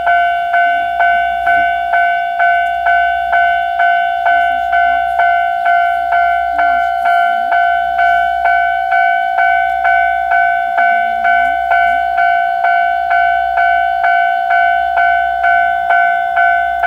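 Railway level-crossing warning bell ringing steadily, a single high clang repeated about twice a second, the sign that a train is approaching the crossing.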